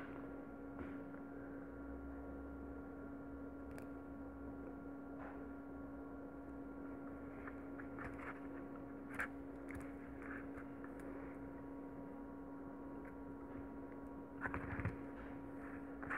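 Steady electrical hum, one constant low tone, with a few faint clicks and rustles of plastic pearl beads and nylon thread being handled, a small cluster of them near the end.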